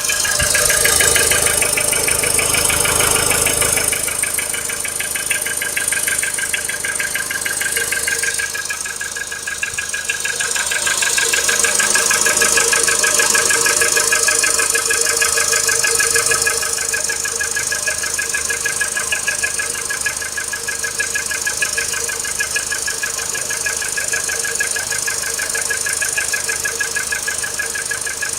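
VW Polo Sedan's 1.6-litre four-cylinder petrol engine idling cold with a fast, even knock riding on its running sound: the cold-engine knock.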